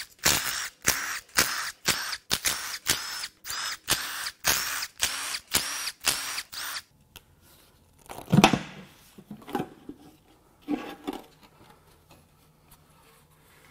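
A cordless Milwaukee Fuel power tool backing out the valve-cover bolts on a Toyota 2AR-FE engine, in a quick run of short whirring bursts, about two a second, for the first seven seconds. About eight seconds in comes a single loud clunk, followed by a few lighter knocks.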